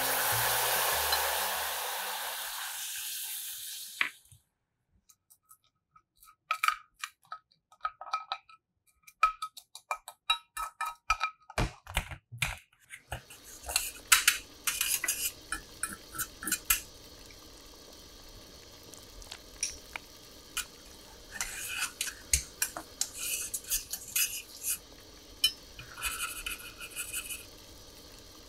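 Water poured into hot melted sugar in a stainless steel pan hisses loudly for about four seconds. A metal spoon then clicks and rings against the pan as it stirs. From about halfway through, the sugar syrup simmers with a steady soft hiss under repeated bouts of spoon clinking against the pan.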